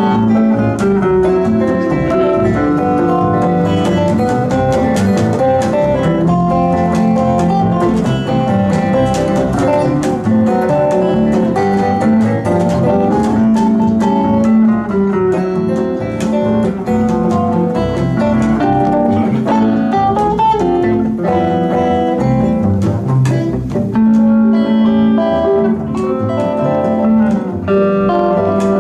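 Three guitars playing a lively fingerpicked instrumental together, a steady stream of quick plucked notes over a picked bass line.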